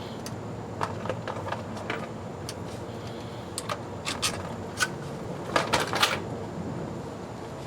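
Irregular clicks and knocks of tools and metal parts being handled as the old transmission filter comes off, with a quick cluster of clicks about two-thirds of the way through.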